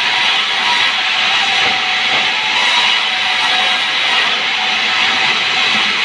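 Sawmill band saw ripping a log lengthwise: the blade cutting through the wood gives a loud, steady hissing whine over the running machine.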